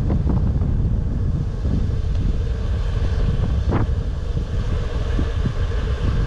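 Wind buffeting the microphone during a bike ride: a loud, steady low rumble, with a few brief clicks, the clearest about four seconds in.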